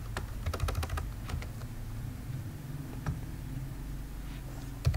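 Computer keyboard typing: a quick run of keystrokes in the first second, then a few single key presses, over a steady low hum. A sharper, louder click comes near the end.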